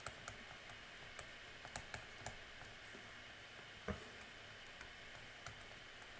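Faint, scattered clicks over quiet room hiss, the loudest a little before four seconds in.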